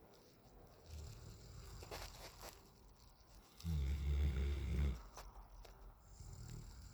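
Young Alaskan Malamute snoring in his sleep: one loud, low snore lasting just over a second about halfway through, with quieter breathing between snores.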